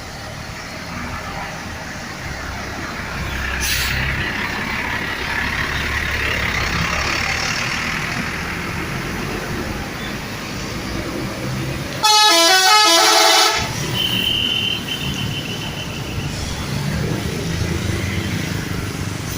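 A bus telolet horn, the multi-tone musical air horn of Indonesian buses, plays a fast run of changing notes for about a second and a half, about twelve seconds in. It is the loudest sound, over a steady low engine rumble and outdoor noise.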